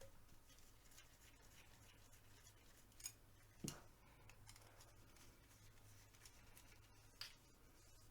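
Near silence with a faint low hum, broken by a few short clicks of steel 1911 pistol parts being handled, the sharpest about three and a half seconds in.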